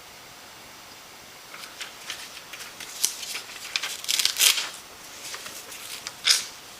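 Irregular rustling and clicking of something being handled, starting about a second and a half in, loudest near the middle and once more near the end, over a steady hiss.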